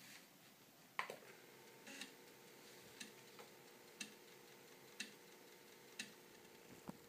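Amiga 1200 3.5-inch floppy drive formatting a disk. Its head steps track to track with a faint click about once a second, over a steady hum from the drive motor that starts about a second in.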